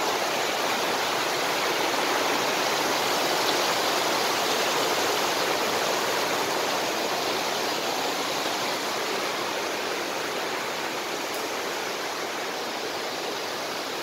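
A rocky stream rushing over stones in small cascades, a steady rush of water that grows a little fainter in the second half.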